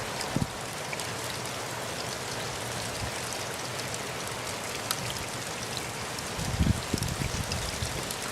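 Steady rain falling, an even hiss with scattered drops ticking, the first rain in months. A few louder, deeper knocks stand out about half a second in and again around six and a half to seven seconds in.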